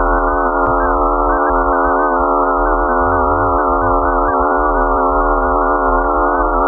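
Emergency Alert System alarm tone: a loud, steady cluster of many electronic sine tones sounding together at once as one dense chord, with a slight waver in the upper tones.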